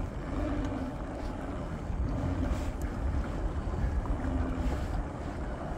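Wind rumbling across a phone microphone aboard a pedal-drive kayak under way. A low hum from the pedal drive comes and goes about once a second.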